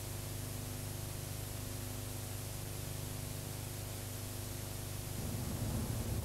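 Steady hiss with a low, even hum underneath, the background noise of an old soundtrack. About five seconds in, a louder, uneven low rumble comes in.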